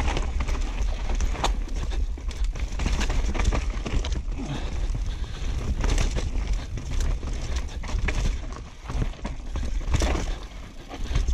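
Downhill mountain bike descending a rough, rocky dirt trail: a steady low rumble of wind on the microphone, with frequent sharp clatters and knocks from the tyres, chain and frame as the bike rattles over rocks and roots.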